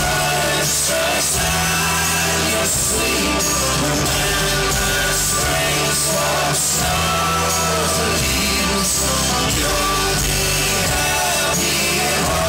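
Live folk-rock band with horns and strings playing loudly, with singing in the mix, heard as a loud, dense wash of sound.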